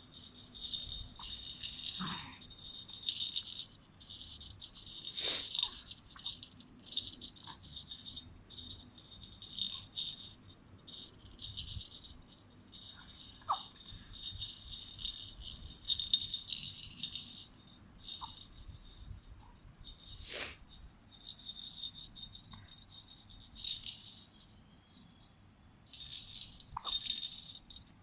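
A baby's rattle toy with a small bell, jingling in irregular bursts as it is shaken, with a few sharper clicks or knocks among them.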